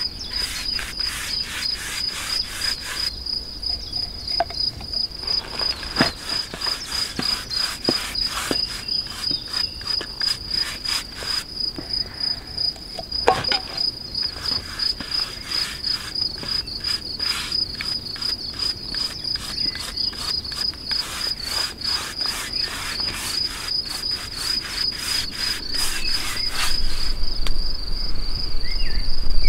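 Crickets chirping: a steady high trill with a rhythmic pulsing of about four beats a second over it, and a couple of faint clicks.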